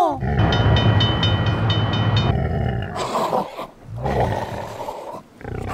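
Big-cat roars, lion and tiger sound effects, several in a row. A bell rings fast, about five strokes a second, over the first two seconds.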